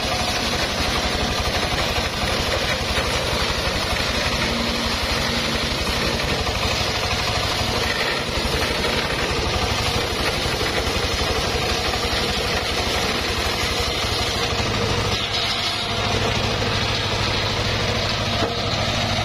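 Engine of a homemade circular sawmill running steadily.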